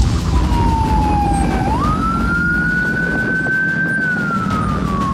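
Police motorcycle siren in a slow wail. It falls at first, sweeps sharply up in pitch about two seconds in, holds high, then falls slowly again. Under it runs a steady low rumble of engine and wind from riding at speed.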